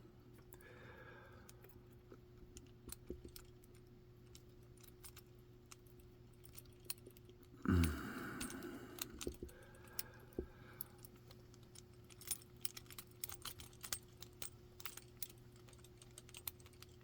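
Faint, scattered metallic clicks and scrapes of a tension tool being worked down into a lock's keyway and against its pins, with a short louder sound about eight seconds in. A low steady hum sits underneath.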